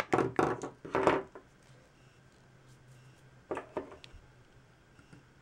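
Handling of a clear plastic blister tray and small plastic toy figures: a cluster of crinkles and knocks in the first second or so, then two more short clicks about three and a half seconds in.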